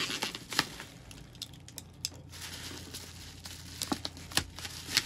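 Bubble wrap crinkling, with irregular small clicks and crackles, as a strip of paper tape is peeled off it by hand.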